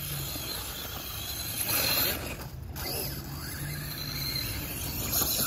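Electric RC monster truck (Redcat Volcano EPX with a 3500KV brushless motor) driving on dirt at part throttle, its motor and drivetrain giving a mechanical noise that swells about two seconds in and again near the end.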